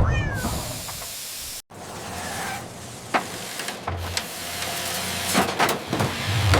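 Hissing factory machinery with scattered clicks and knocks, broken by a brief silent cut about a second and a half in. At the very start, the tail of a cat's meow falls in pitch.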